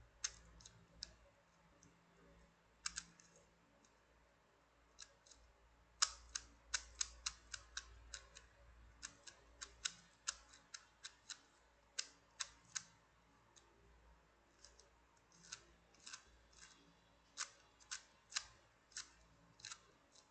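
YJ O2 Cube V2 plastic puzzle cube being turned by hand, its round faces clicking as they rotate. A few scattered clicks come first, then a quick, irregular run of about three clicks a second from about six seconds in, thinning out again later.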